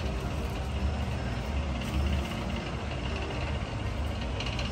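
A low, steady rumble of an engine or motor running in the background.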